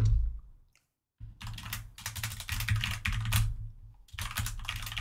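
Rapid typing on a computer keyboard, dense clatters of key clicks starting about a second in, with a short break near four seconds. A low thud right at the very start.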